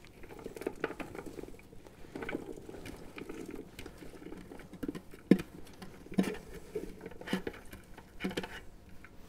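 Diced vegetables tumbling and pattering out of a clear plastic food-chopper container into a cooking pot, with scattered light taps and knocks as the container is shaken and the last pieces are pushed out by hand. The sharpest knock comes about five seconds in.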